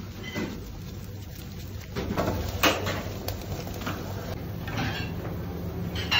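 Frying pan of creamy tomato sauce being tossed and shaken on a gas stove, with a handful of knocks and clatters of the pan against the burner grate over a steady low hum.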